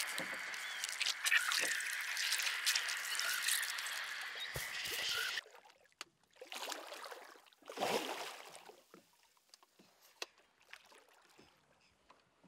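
A steady hiss with a high buzzing band, which cuts off suddenly about five seconds in. Then scattered water splashes from a hooked dorado thrashing at the surface beside the boat.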